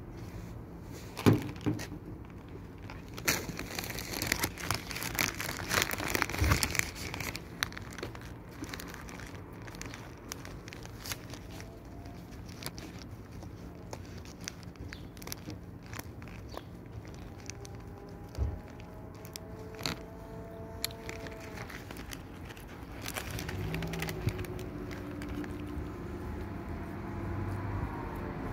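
Crinkling, crackling handling noise: a sharp click about a second in, then several seconds of dense crackle, with scattered clicks after. Near the end a faint vehicle hum grows louder.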